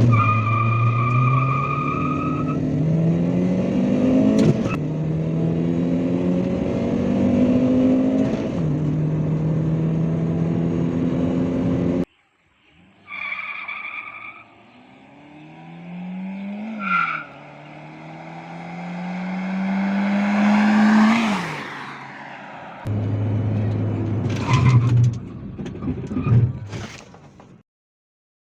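Toyota Corolla Altis 1.8 engine accelerating hard through the gears of its five-speed manual: the note climbs and drops back at each upshift. It is cut together from several runs; the sound stops abruptly about twelve seconds in and again shortly before the end.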